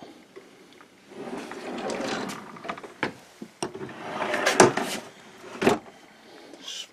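Storage drawers sliding open and shut in two noisy runs, with several sharp knocks between and after them.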